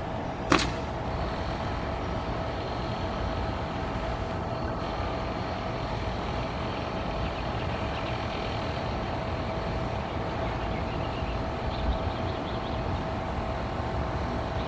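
A car driving: steady engine and road noise with a constant hum, and a single sharp click about half a second in.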